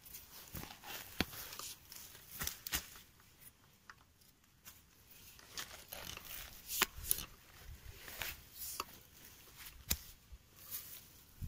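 Small digging shovel chopping and scraping into soil and grass roots in a dug hole: an irregular series of short crunching scrapes and clicks.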